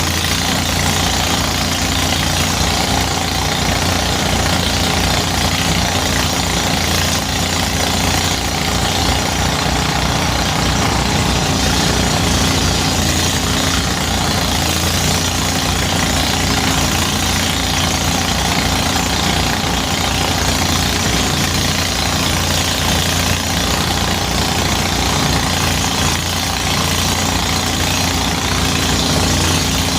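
Engine-driven rice threshing machine running steadily under load, a loud, even machine noise with a rapid low pulsing from its engine.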